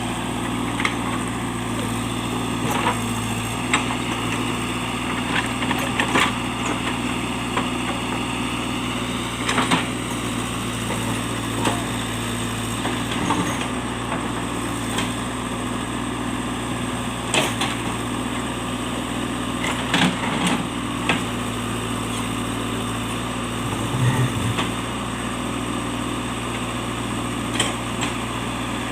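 JCB earthmover's diesel engine running steadily under work, with scattered sharp knocks and clicks at irregular intervals.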